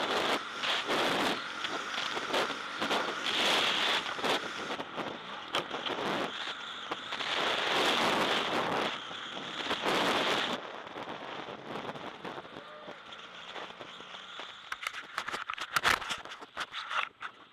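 2009 BMW F800GS parallel-twin adventure motorcycle ridden hard over a dirt track, heard from a helmet-mounted camera: a dense rush of wind, engine and tyre noise with crackling from dirt and the microphone. About ten seconds in the noise drops off suddenly, and scattered clicks and scrapes follow near the end.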